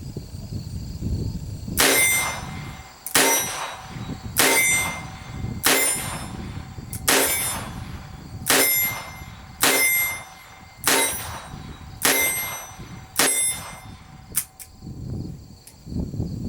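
Ruger GP100 .22 LR revolver fired ten times, about one shot every 1.3 seconds, each report with a ringing tail; the ten shots empty its 10-shot cylinder. Two light clicks follow the last shot.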